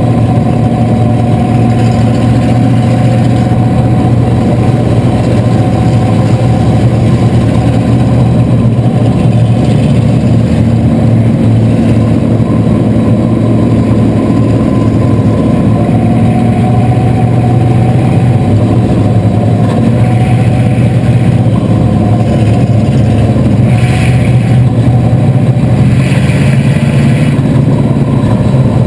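Chevrolet 305 V8 of a bomber-class stock car running steadily under light throttle, heard very loud from inside its stripped cockpit. The engines of the surrounding cars mix in.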